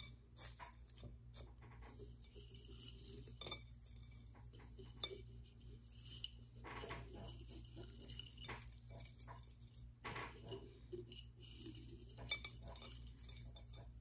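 Crushed eggshell pieces rattling and scraping in a glass jar as it is shaken and tipped out onto a ceramic plate, with light clinks of glass. A few sharper clinks stand out among the faint scattered clicks.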